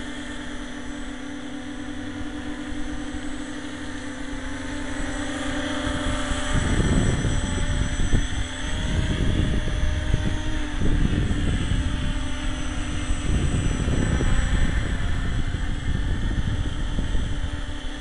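RC tricopter's motors and propellers humming at a steady pitch. From about six seconds in, gusty wind buffeting on the microphone comes in loudly and partly covers the hum.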